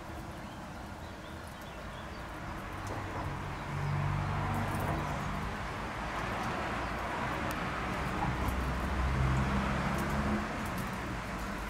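Faint crackling clicks of cooked brown shrimp shells being peeled by hand, over a steady background hiss and a low hum that swells about four seconds in and again near the end.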